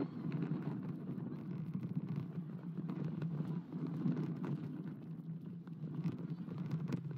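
Steel roller coaster car running along its track, recorded on board: a steady low rumble of the wheels on the rails.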